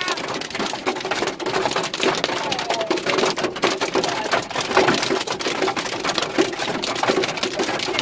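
Hail and heavy rain drumming on the car's roof and windscreen, heard from inside the cabin: a dense, irregular patter of hits.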